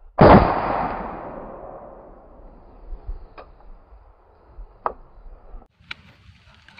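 A single loud gunshot about a quarter second in, its report dying away over about two seconds. A few faint clicks follow, then rustling near the end.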